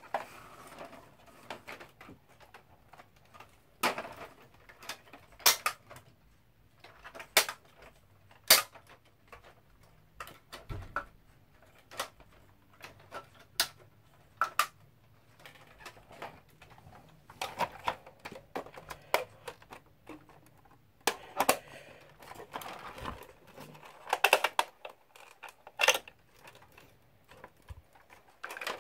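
Hard plastic parts of a Bruder John Deere 7930 toy tractor being handled: irregular clicks, clacks and knocks as the front loader's arm and grab bucket are worked by hand and the tractor is picked up and tilted.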